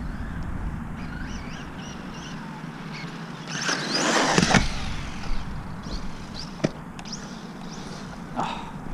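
LC Racing EMB-T electric RC truggy: its motor whines up and its tyres rush as it speeds by about three and a half seconds in, over a steady low wind rumble on the microphone. A single sharp knock comes about two-thirds of the way through.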